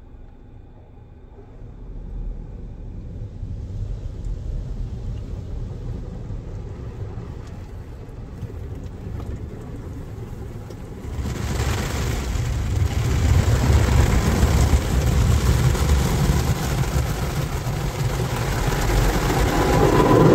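OPW PDQ ProTouch Tandem automatic car wash heard from inside the car: a low rumble, then about eleven seconds in a sudden loud rush of water spray and wash material against the windshield and body.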